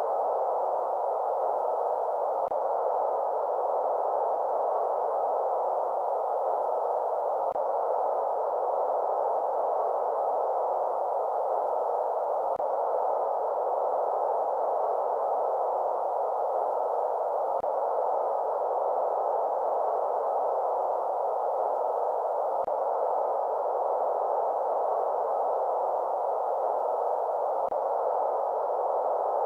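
Steady white noise for lulling babies to sleep: an even, unchanging hiss centred in the middle range, with little deep or high content. A very faint click comes about every five seconds.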